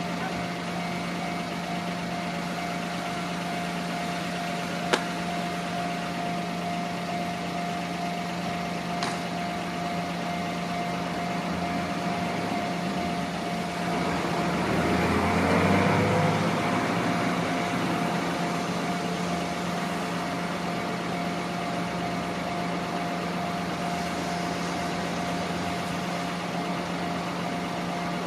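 A vehicle engine idling with a steady hum. About halfway through, a louder passing sound swells and fades over several seconds, falling in pitch. There is a sharp click about five seconds in.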